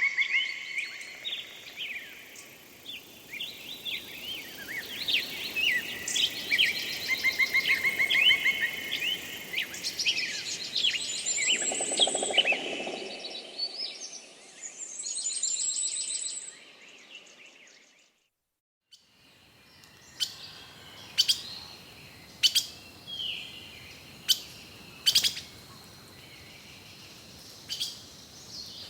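Forest birds singing: several birds trilling and chirping together in a dense chorus. It fades out briefly about two-thirds of the way in, then gives way to sparse, short, sharp chirps.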